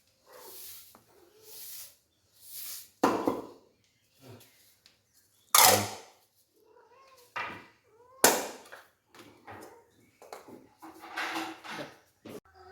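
A cat meowing several times, its calls broken up by short, sharp bursts of hissy noise.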